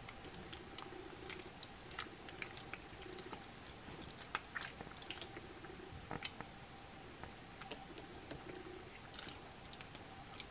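Faint, wet, sticky squelching and clicking of hands rubbing and squeezing a raw pork large intestine coated in flour paste, cleaning its inside with the fingers. A faint steady hum runs underneath.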